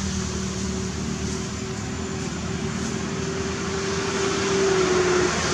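A steady motor drone, like a vehicle engine running, over an even background hiss. The drone's pitch rises slightly and then stops about five seconds in.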